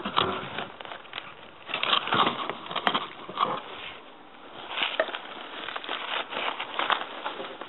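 Irregular crackling, rustling and light knocks of hard plastic recycling bins and cardboard packaging being handled close to the microphone.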